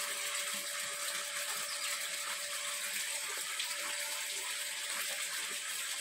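A steady, even hiss like running water, with a faint steady hum under it.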